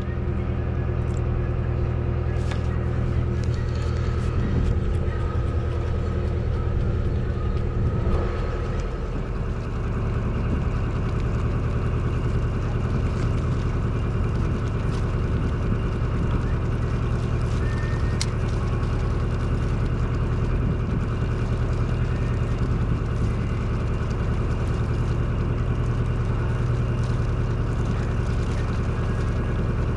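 Party fishing boat's engine running steadily, a deep hum that holds one pitch throughout.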